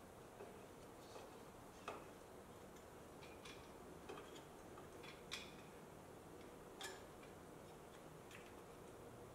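Faint, scattered metallic clicks of a hand wrench working on the turbo's bolts, with a few sharper clicks about two, five and seven seconds in.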